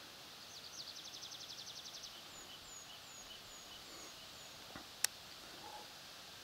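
A songbird singing faintly: a fast high trill of about ten notes a second, then a slower run of six short downslurred whistles. About five seconds in comes a single sharp click, the loudest sound.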